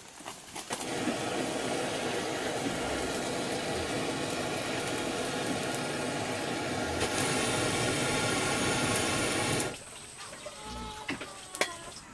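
Steady rush of running water, starting about a second in, growing a little brighter about seven seconds in, and cutting off suddenly near the end.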